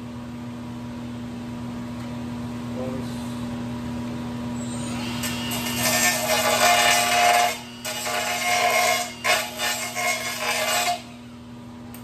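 A handheld power tool running on metal in a few bursts over about six seconds, starting about five seconds in, with a grinding whine, over a steady low hum.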